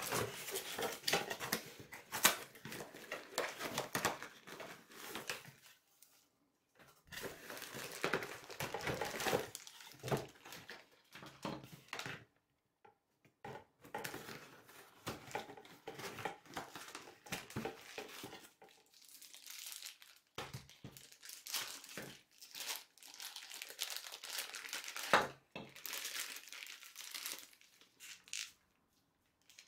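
Unboxing sounds: cardboard box flaps and inserts and a plastic bag being handled, rustling and crinkling in several bursts of a few seconds with short pauses between. Two sharp knocks stand out, one about two seconds in and one near the end.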